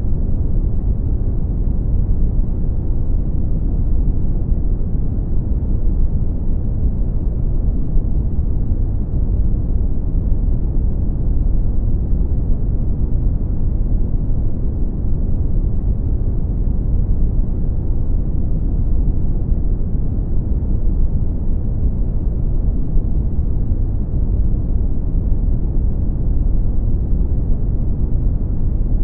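Brown noise: a steady, deep, even rumbling hiss, strongest in the low frequencies and fading out toward the highs, unchanging throughout.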